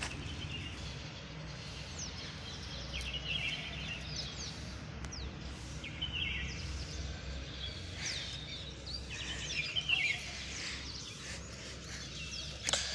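Birds chirping in short, scattered calls over a steady low rumble.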